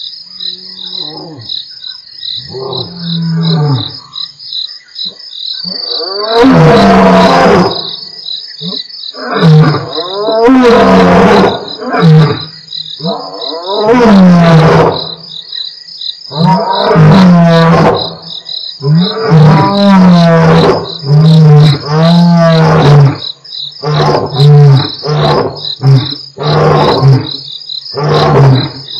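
Two male lions roaring in a full roaring bout. It opens with soft moans, builds to several long, loud roars, and trails off into a run of short grunts about one a second. Crickets trill steadily underneath.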